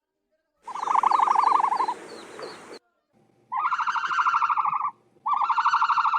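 Ostrich calls: three rapidly pulsed, buzzy calls, each one to two seconds long, separated by short silences.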